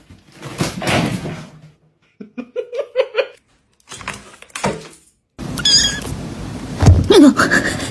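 A cat's calls in several short separate bursts with silent gaps between them: a quick run of short calls, then a longer falling call near the end, with knocks and noise between.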